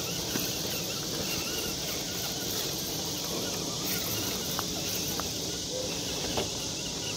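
Night insects chirring steadily in a high, even band, over a low rumble, with a few faint clicks.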